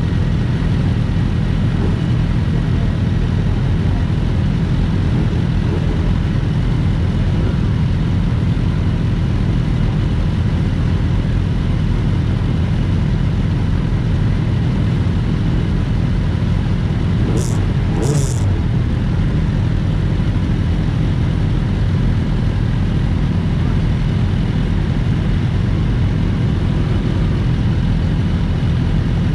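Sport motorcycles idling steadily while they wait. About halfway through there are two short high hisses.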